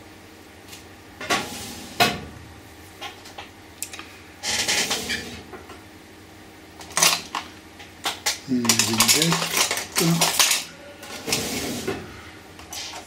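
Small objects being picked up and set down on a hard worktable: scattered sharp clicks and knocks with short bursts of rustling and scraping in between.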